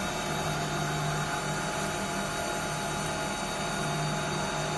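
Metal lathe turning a metal workpiece, the cutting tool peeling off long chips: a steady low hum from the machine with an even hiss of the cut over it.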